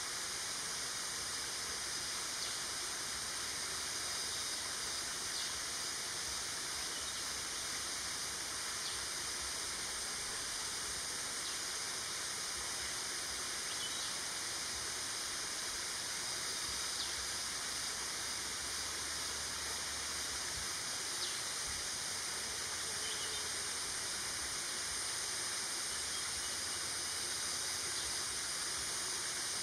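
Steady high hiss of outdoor ambience, even throughout, with a few faint ticks now and then.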